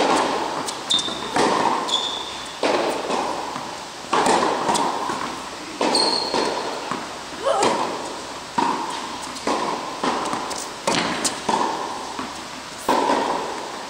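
Tennis balls struck by racquets and bouncing during a rally, about one sharp hit a second, each with a long echoing tail in the large indoor hall. Brief high shoe squeaks on the court are heard a few times.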